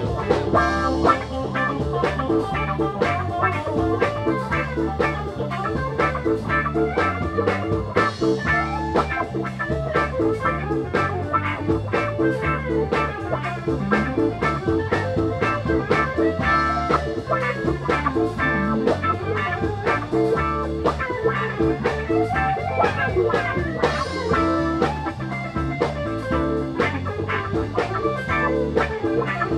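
Blues band playing: guitar over a moving bass line and drums keeping a steady beat.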